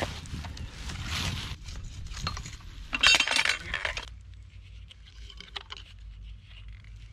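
Metal clinking and scraping of a pipe wrench on the brass fittings at the outlet of a submersible well pump as the fittings are tightened, loudest about three seconds in. About four seconds in the clatter stops abruptly and only a quiet low background remains.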